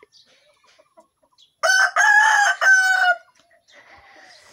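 A rooster crowing once, about a second and a half in: one call in three linked parts, the last held longest.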